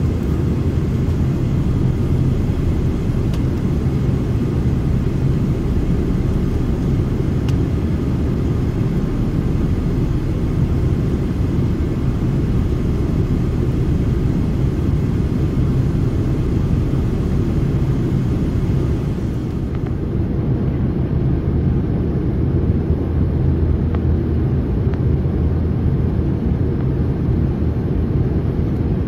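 Steady drone of a jet airliner's cabin in flight: engine and rushing air, mostly a deep rumble with a fainter hiss above it.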